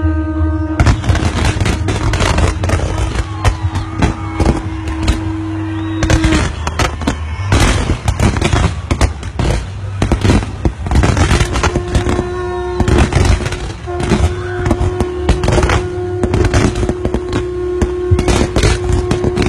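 Aerial fireworks going off in rapid succession, a dense run of sharp bangs and crackles starting about a second in. A steady held tone sounds beneath them.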